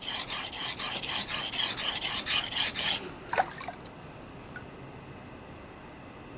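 Hatsukokoro 210 mm gyuto blade stroked back and forth across a wet coarse whetstone, grinding a secondary bevel and raising a burr: a rhythmic rasping scrape of about four strokes a second. The strokes stop abruptly about three seconds in, followed by one brief faint scrape.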